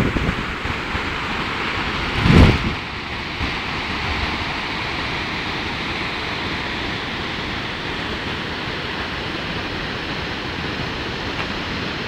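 Steady rushing of Unchalli Falls, a 116 m waterfall on the Aghanashini river. About two seconds in, a short low blast of wind hits the microphone.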